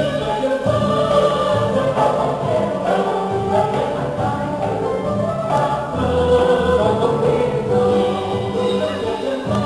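Traditional Vietnamese water-puppet theatre music: an instrumental ensemble with several voices singing together, continuing steadily.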